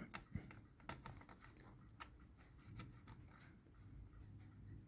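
Near silence with a few faint, scattered clicks of small plastic connector parts being handled and pushed together.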